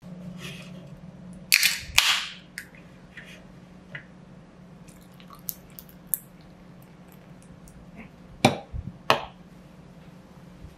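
Beer can and glass being handled on a tabletop. There are two sharp clacks with a brief fizzy rush about two seconds in, a few light ticks, and two more knocks near the end, over a low steady hum.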